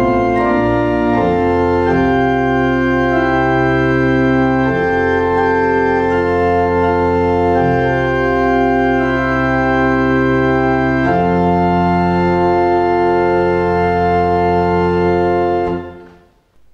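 Church organ playing slow sustained chords that change every few seconds, as processional music; it fades out near the end.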